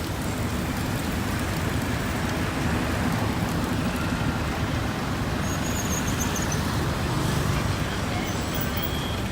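Steady city street traffic noise: the running of passing cars and engines.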